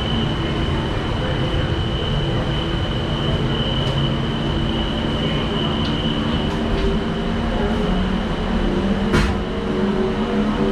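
Disney Skyliner gondola cabin riding along its cable, heard from inside: a steady mechanical rumble and hum with a constant high whine, low tones that rise slowly near the end, and a sharp click about nine seconds in.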